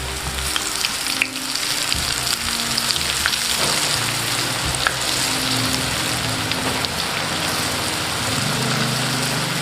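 Flour-coated banana-stem strips sizzling steadily in hot cooking oil, just put in to deep-fry.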